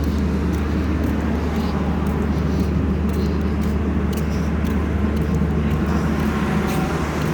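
Steady low rumble of outdoor street background, like traffic or a running engine nearby, with a few faint clicks.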